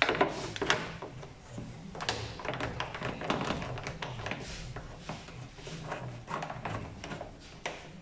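A screwdriver working the retaining screw in the door edge's access hole as the outer door handle is worked loose. A busy, irregular run of clicks, taps and knocks of metal and plastic, over a low steady hum.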